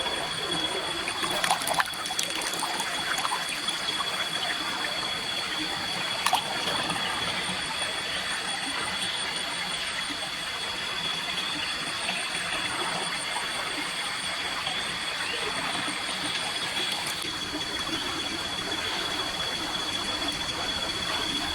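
Water trickling steadily under a constant high-pitched whine, with two sharp knocks, one about two seconds in and one about six seconds in.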